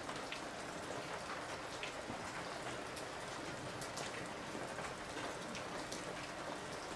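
Boric acid and denatured alcohol slurry burning with an open flame inside a small electric heat-treating oven: a steady soft hiss with scattered faint crackles.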